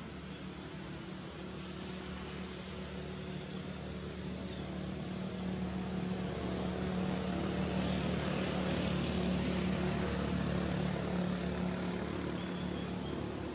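A steady engine drone with a low hum and a hiss, growing louder to a peak about nine seconds in, then easing off a little.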